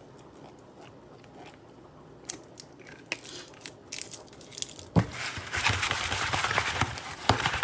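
Fried vegan chicken wings shaken in a covered bowl to coat them in barbecue sauce: after a few light clicks, a dense crackly clatter starts about five seconds in.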